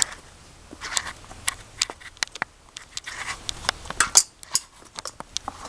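Small metal bike lock being handled: irregular sharp clicks and light rattles, with a few soft rustles in between.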